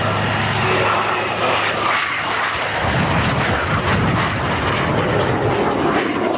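Fixed-wing display aircraft flying overhead, its engine noise steady and even with no clear tone.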